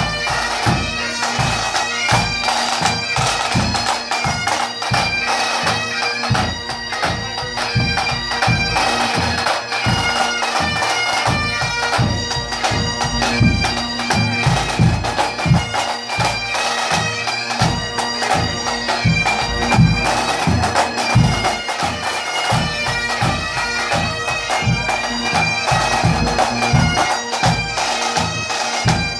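Pipe band playing: bagpipes sounding a melody over a steady drone, with snare drums beating along in quick strokes.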